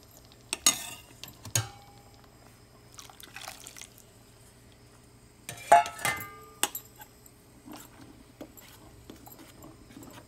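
Metal spoon clinking and scraping against a steel cooking pot as thick coconut milk is poured into cooked cassava and stirred in. A few sharp clinks come in the first two seconds, and the loudest, ringing clink comes about six seconds in, followed by lighter scraping and ticks.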